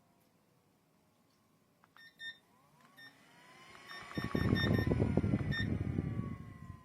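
Short electronic beeps from a tower fan's touch controls, then the fan's airflow buffeting the microphone as a low rushing, fluttering noise for about two seconds before it fades. A faint wailing tone rises and falls in the background.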